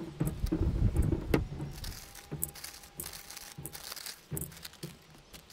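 Lumps of rock sugar and small ume plums clinking and clattering as they drop into a large glass jar. The clatter is busiest in the first couple of seconds, then thins to scattered clicks.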